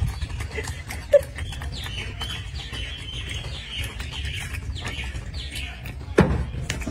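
A baby golden snub-nosed monkey gnawing apple, with small crunching clicks throughout. High chirping calls run from about two to five seconds in. Two louder knocks come about a second in and near the end, over a steady low rumble.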